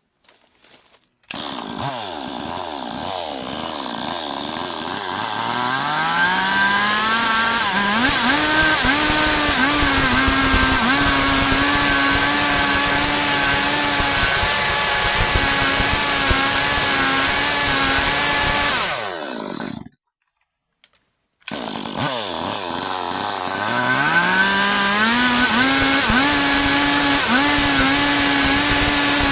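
Stihl MS 382 chainsaw revving up and running at full throttle under load, sawing through a log. It cuts off abruptly about two-thirds of the way through, then comes back and climbs again to a steady high pitch.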